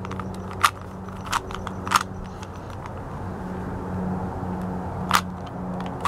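Plastic Rubik's Cube layers being turned by hand, clicking sharply four times at uneven intervals as the moves of a solving algorithm are made, over a steady low hum.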